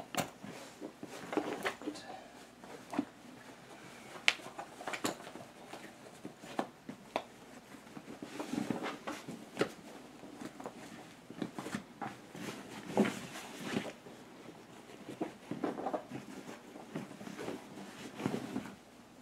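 A large snake-tail costume being handled: irregular rustling with scattered sharp clicks, one of the sharpest about four seconds in.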